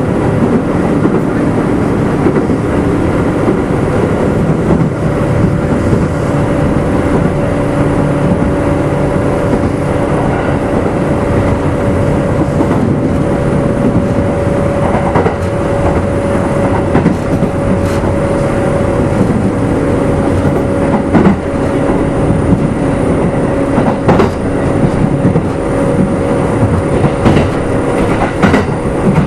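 Kintetsu 2610-series electric train running at speed, heard from inside motor car Mo 2669: a steady hum from the motors and gears over the rumble of the wheels, with scattered clicks of wheels crossing rail joints.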